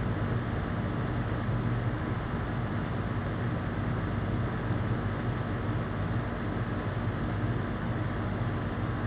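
Steady motor hum with an even hiss during a refrigerator recharge, low and unchanging throughout.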